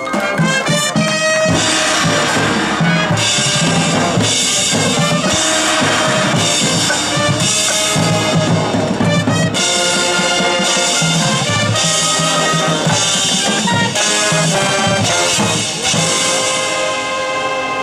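Marching band playing at full volume: trumpets and trombones over marching drums. The full band comes in loud right at the start, after the mallet-percussion introduction.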